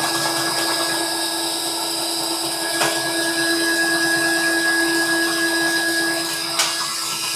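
Cordless Ryobi drain auger running steadily with a motor hum, spinning its cable down a clogged shower drain, with a sharp click about three seconds in and another near the end.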